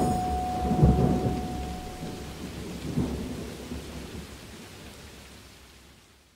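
Thunderstorm recording: steady rain hiss with low rolls of thunder about one and three seconds in, fading out to silence. A last held musical note dies away in the first couple of seconds.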